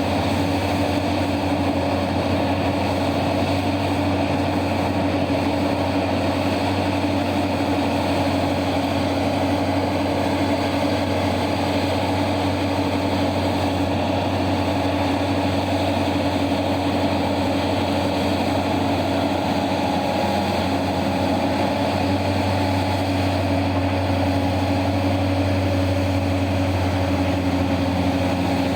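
Heavy mining machinery's large diesel engines running steadily at an even speed, a deep continuous drone with no rock impacts; the engine note shifts slightly about twenty seconds in.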